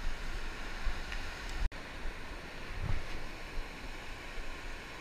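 Ocean surf washing against the shore with wind on the microphone, a steady rushing noise. The sound cuts out for an instant about a second and a half in.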